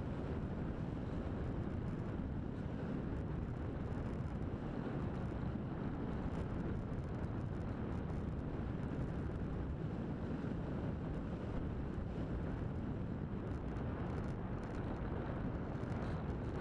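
Steady rush of airflow buffeting the microphone of an onboard camera on a radio-controlled V-tail glider in flight, with no pitched motor sound.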